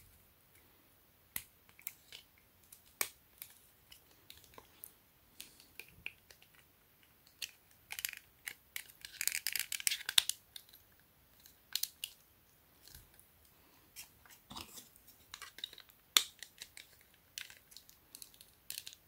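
Scattered clicks and taps of a 9-volt battery being snapped onto its clip and worked into the plastic battery compartment of a small blower housing, with a longer scraping rustle about eight to ten seconds in.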